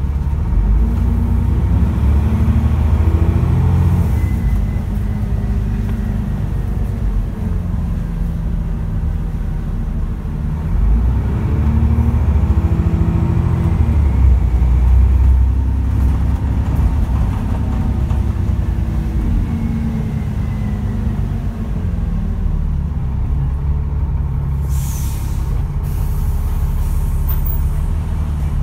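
Dennis Trident double-decker bus's diesel engine heard from inside the bus, rising in pitch as it accelerates about three times, then running steadily. A short hiss comes near the end.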